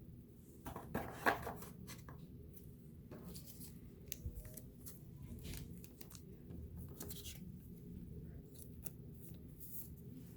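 Trading cards and pack wrapper being handled at close range: faint rustles, slides and light clicks of card stock, with a louder scrape about a second in.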